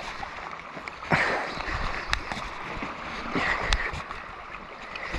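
Seawater splashing and sloshing, with louder splashes about a second in and again past three seconds, and a couple of sharp clicks.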